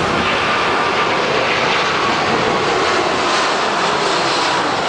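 Airbus A380's four turbofan engines at takeoff thrust as the airliner lifts off and climbs away: a loud, steady rushing jet noise with a faint steady whine.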